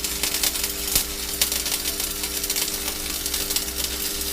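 Stick (MMA) welding arc crackling and sizzling steadily as the electrode is run along the metal in a zigzag weave, over a steady electrical hum.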